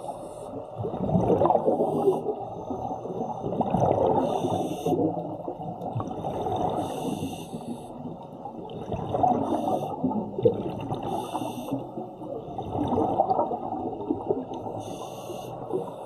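Scuba diver breathing through a regulator underwater: a bubbling rumble of exhaled air about every two to three seconds, about five times, with hissing inhalations between.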